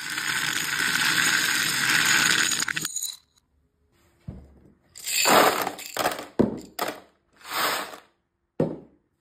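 Small hard beads pouring and clattering onto a plate in a dense, continuous rush that builds and then stops abruptly about three seconds in, as sound played backwards does. After a short silence come several separate short bursts of small plastic cubes rattling and clinking against glass and a plastic tray.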